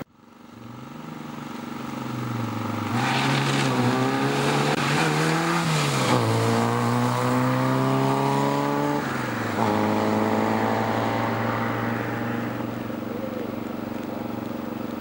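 Small four-cylinder rally car engine accelerating hard, the engine note climbing and then dropping at each gear change, loudest in the middle and easing off near the end as the car pulls away.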